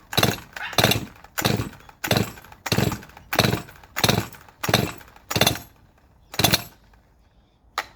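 Farmertec G255 chainsaw being pull-started: the starter rope yanked about ten times in quick succession, each pull a short rasping crank of the two-stroke engine, with a last quick pull near the end. The engine turns over on each pull but does not run between them.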